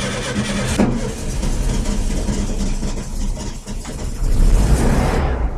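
A car engine running, getting louder about four seconds in.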